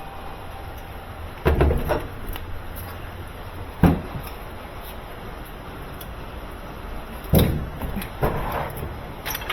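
A series of knocks and bangs, about five of them, the sharpest about four seconds in and again past seven seconds, over a steady low rumble.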